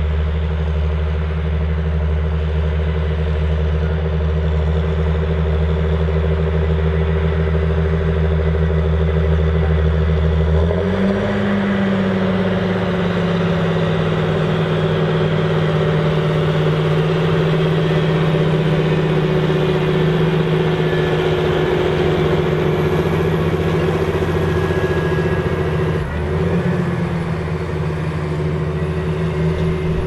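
John Deere 8530 tractor's six-cylinder diesel engine working steadily under load as it pulls a seven-furrow plough through the soil. About eleven seconds in, the engine note changes, rising briefly in pitch and then settling into a new steady note.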